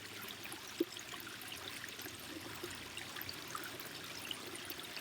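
Water trickling and splashing steadily over a small patio pond waterfall, with scattered drips and one louder plop about a second in.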